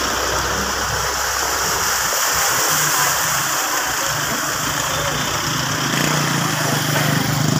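Floodwater rushing and splashing across a road, with vehicle engines running through it: a low rumble that fades about two seconds in as a pickup drives through the water, then a motorcycle engine running steadily.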